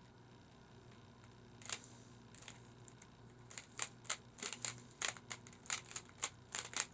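Rubik's cube being twisted by hand: sharp plastic clicks as the faces turn, a single one at first, then a quick run of several a second from about three and a half seconds in.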